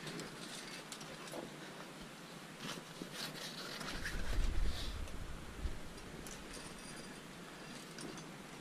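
Faint scraping and small clicks of a climber moving up a narrow rock chimney, body and gear rubbing on the rock, with a low rumble on the microphone from about four to six seconds in.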